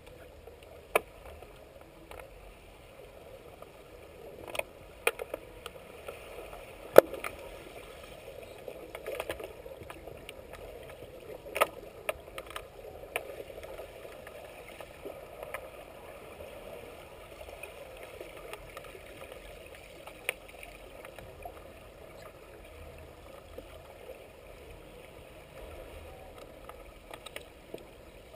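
Underwater hockey heard from below the surface of a pool: a steady watery rush with scattered sharp clicks and clacks of sticks and puck striking each other and the tiled pool floor, the loudest about seven seconds in.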